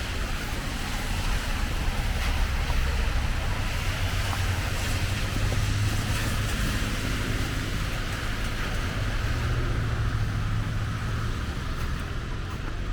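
Steady hiss and low rumble of city traffic on wet streets in the rain, swelling somewhat in the middle.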